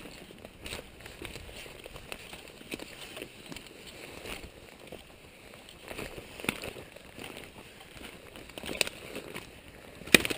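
Footsteps through forest-floor brush and deadfall, with twigs and branches snapping at irregular moments; the loudest snap comes near the end.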